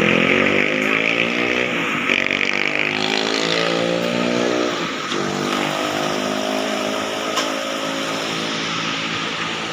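Motorcycle engines accelerating, their pitch rising in three long runs one after another, over a steady hiss.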